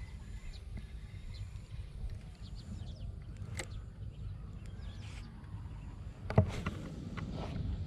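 Spinning reel and rod being handled, with small clicks as the reel is worked. About six and a half seconds in comes a cast: a sharp click, then a second-long swish as the line pays out. A steady low rumble runs underneath.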